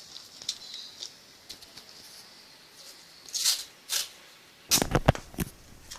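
Handling noise from the shield-making materials: faint rustling, two short rasps about three and a half and four seconds in, then a quick cluster of knocks and thumps near the end.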